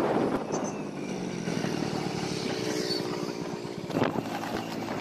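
Motorcycle engine running while riding along a road, with a steady engine note clearest in the middle. A brief knock sounds about four seconds in.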